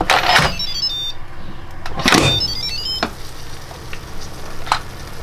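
Instant Pot electric pressure cooker lid being twisted and unlocked, a scraping rasp of the lid in its rim, followed twice by the cooker's short electronic jingle of quick stepped notes, just after the start and again about two and a half seconds in. A click near the end as the lid comes free.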